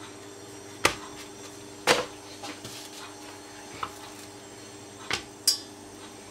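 Several sharp taps and clicks as a corn tortilla is handled and flipped by hand in a dry nonstick frying pan, over a steady low hum.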